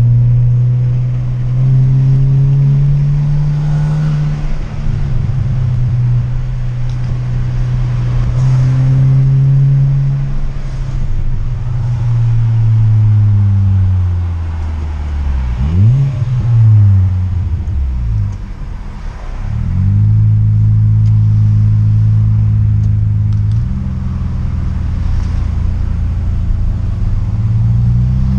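Hyundai HB20 1.6 four-cylinder engine through an aftermarket sport muffler exhaust, building revs and easing off several times while driving, with a quick rise and fall in pitch about halfway through, then running at a steady pitch for the last several seconds.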